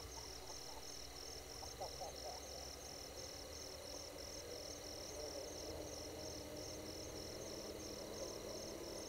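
Night chorus at a waterhole: insects trilling high in a steady pulse of about three beats a second, over a lower chorus of frogs that grows fuller about halfway through.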